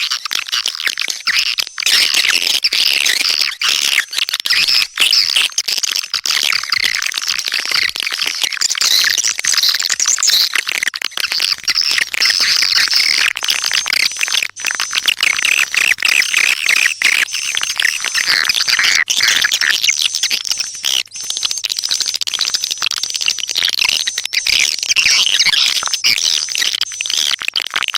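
Swiftlet calling sound: a dense, continuous chorus of swiftlet chirps and twitters, the lure call played to draw swiftlets to a nesting house.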